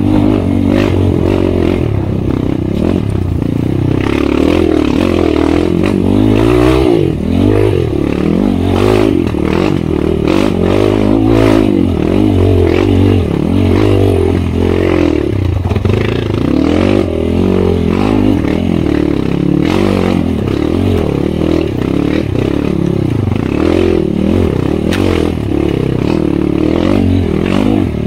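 Kawasaki KLX 150's single-cylinder four-stroke engine heard on board while trail riding, its revs rising and falling constantly as the throttle is worked. Scattered clatter and scraping come from the bike on rough rocky ground.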